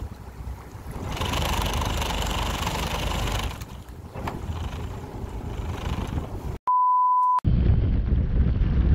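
Wind buffeting the microphone on a fishing boat, a steady low rumble that swells for a couple of seconds early on. About two-thirds of the way in, a short steady beep cuts in over silence, an added sound effect, after which heavier wind rumble follows.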